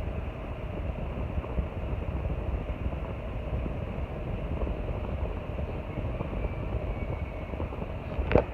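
Arno Ultra Silence Force electric fan running with a steady whoosh of moving air and motor hum. Near the end come a couple of sharp knocks or clicks.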